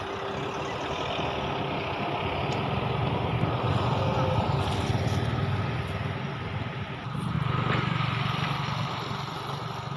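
Low, steady rumble of background motor traffic, swelling louder twice as vehicles pass.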